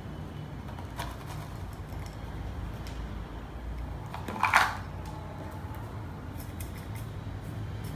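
Small sounds of potting soil being worked into a ceramic pot: a light click, then scattered ticks and scrapes. About halfway through comes one short, louder clatter of the cut plastic-bottle soil scoop being set down on the wooden table. A steady low hum runs underneath.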